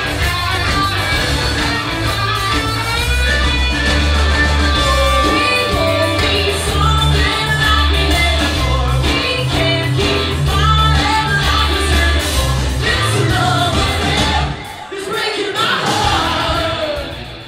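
A rock band playing live, with a lead singer over electric guitar, bass and drums. About fifteen seconds in, the bass drops out for a moment before coming back.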